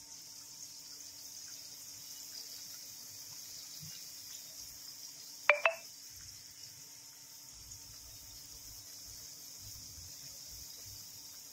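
Mutton cooking in a pan with a soft, steady sizzle, broken about halfway through by two sharp clinks in quick succession.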